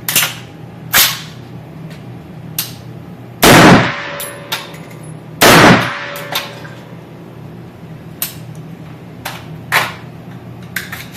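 Unsuppressed AR-15 pistol with an Adams Arms piston conversion firing single shots at uneven intervals: a string of sharp gunshots, the two loudest about three and a half and five and a half seconds in.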